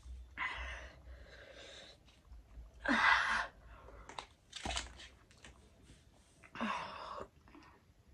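A person blowing out hard through pursed lips four times to cool a mouth burning from a very hot chili chip. The loudest breath comes about 3 seconds in, and a couple of the breaths start with a short voiced sound.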